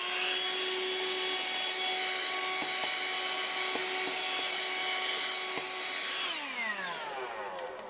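Dirt Devil AccuCharge cordless hand vacuum running with a steady whine, with a few sharp ticks. About six seconds in it is switched off, and the whine falls in pitch and fades as the motor winds down.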